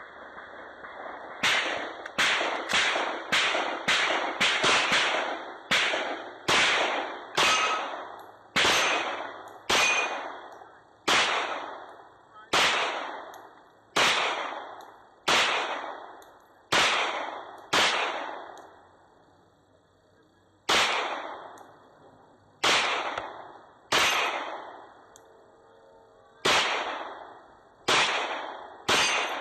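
Pistol shots, about two dozen in one string. They come quickly at first, about two a second, then slow to one every second or two, with a longer pause near the two-thirds mark.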